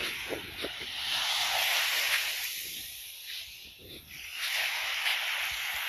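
Small waves washing up on a sandy shore, a hiss that swells and fades in surges a few seconds apart, with a few soft footsteps in the sand near the start.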